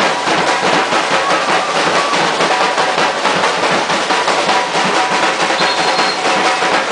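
Samba drum band playing live: snare drums and bass drums beating a fast, dense, steady rhythm.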